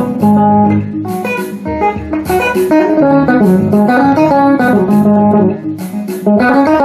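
Guitar played by plucking: a quick melodic run of single notes over lower, longer-ringing notes.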